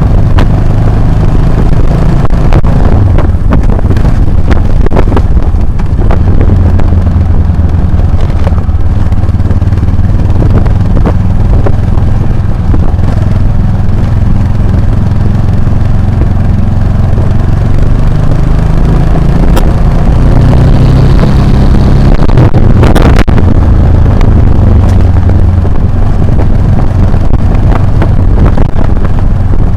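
Motorcycle engine running steadily under way, with its note rising briefly about twenty seconds in. Scattered knocks and rattles run over it, the strongest a bit after twenty seconds.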